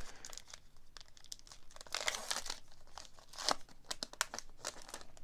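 Baseball card pack wrappers crinkling and tearing as packs are opened and handled, in irregular crackles with a longer, denser crinkle about two seconds in.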